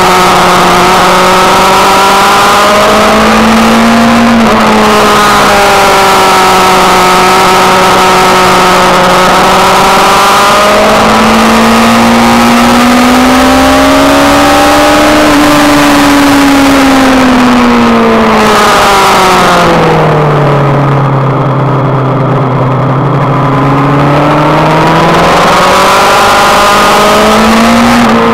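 Sport motorcycle engine running hard at high revs, heard from on the bike under a heavy rush of wind. Its pitch holds steady, climbs as the throttle opens, drops well down for a few seconds past the middle as the rider rolls off and brakes, then climbs again near the end.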